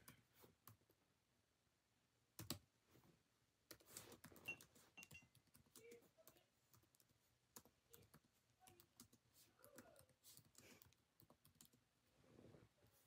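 Near silence with faint, scattered clicks and small taps at uneven intervals, and a slightly louder knock about two and a half seconds in.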